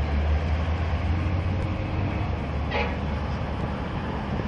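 Diesel coach bus engine running with a low rumble that is heaviest in the first two seconds, and a short pitched sound a little before three seconds in.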